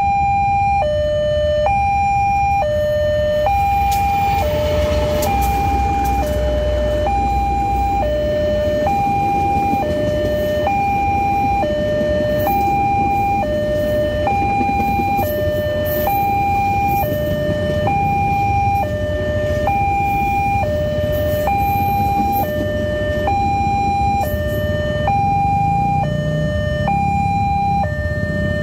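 Electronic two-tone warning alarm of a railway level crossing sounding continuously, alternating a higher and a lower tone about half a second each. Underneath, the low rumble of a passenger train running through the crossing.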